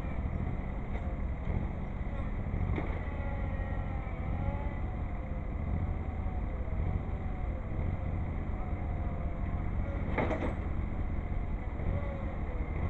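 Tractor engines running steadily at a low rumble, with a brief scraping noise about ten seconds in.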